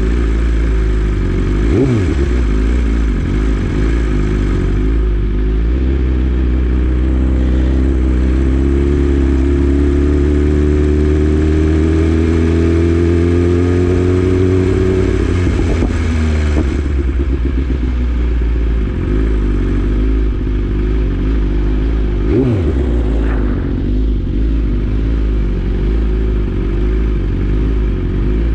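BMW S1000RR inline-four sport bike engine running under way. Near the middle its note climbs steadily for about nine seconds as the bike accelerates, then falls away, with two brief sharp drops in pitch before and after.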